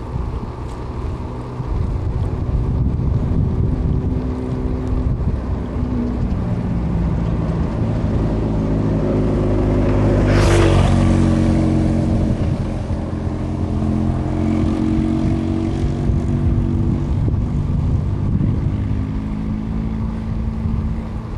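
Vehicle engine running while driving, its pitch shifting as the speed changes, under heavy wind noise on the microphone. A brief louder rush of noise about halfway through.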